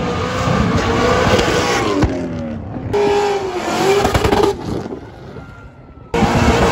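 Drift cars' engines revving high, the pitch swinging up and down as the drivers work the throttle, over the hiss of spinning tyres. The sound jumps abruptly to another car about three seconds in and again near the end, with a quieter stretch just before.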